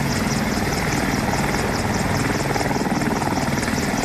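AH-64 Apache attack helicopter running on the ground, its twin turboshaft engines driving the turning main rotor, with a steady, rhythmic rotor beat.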